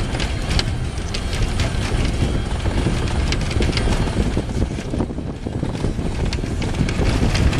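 Pickup truck driving fast over a rough field, heard from its bed: a steady, loud rush of engine and travel noise with frequent sharp rattles and clicks.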